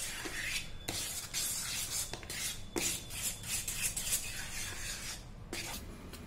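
Metal spoon stirring and scraping thick banana-oat pancake batter in a plastic bowl: quick repeated rasping strokes, with an occasional click of the spoon against the bowl.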